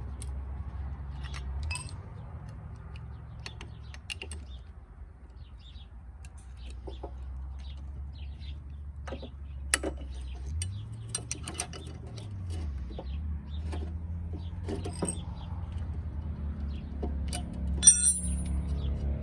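Scattered clinks and knocks of metal tools and parts being handled, over a low steady hum that briefly rises and falls in pitch about halfway through; one sharp knock near the end stands out.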